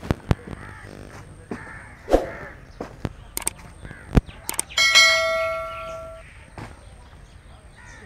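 A subscribe-button sound effect: a few clicks, then a loud bell-like ding about five seconds in that rings for over a second before fading away. Birds call in the background, and there are a few sharp knocks.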